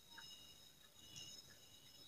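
Near silence with a faint, steady high-pitched chorus of night insects.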